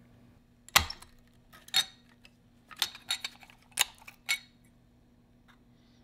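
Light metal clinks and taps, about seven of them at uneven intervals, from the metal cap and chamber of a Pyrotronics industrial smoke detector being taken apart by hand. A faint steady low hum runs underneath.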